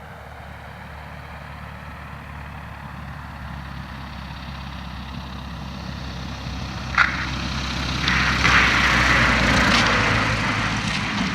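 Cessna 172 Skyhawk's four-cylinder piston engine and propeller, growing steadily louder as the plane approaches, loudest a few seconds before the end and then starting to fade as it passes. A single sharp click sounds about seven seconds in.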